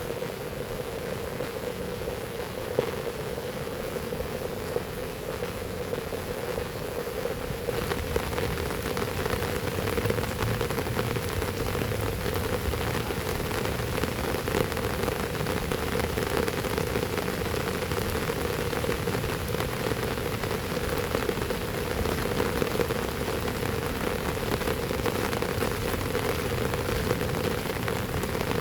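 Heavy rain falling steadily, a dense hiss of many drops hitting surfaces. It grows heavier and brighter about a quarter of the way in.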